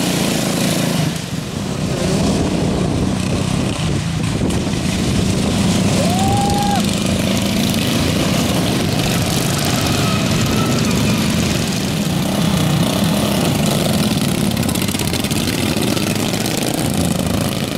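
Several racing ride-on lawn mowers' small petrol engines running together.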